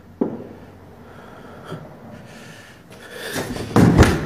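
A single dull knock just after the start, one of a slow, evenly spaced series of knocks. Near the end comes loud rustling and thumping from the phone being handled and swung round fast.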